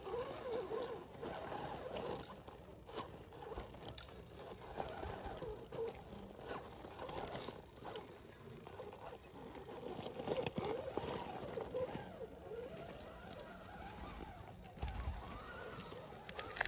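RC scale crawler driving over rock and loose gravel: stones click and crunch under its tyres, and the whine of its small electric motor rises and falls with the throttle.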